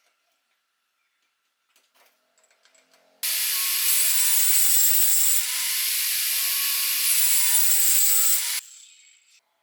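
Angle grinder cutting into wood: a loud, harsh cutting noise with the motor's whine, starting suddenly about three seconds in after a few small clicks and stopping about a second before the end.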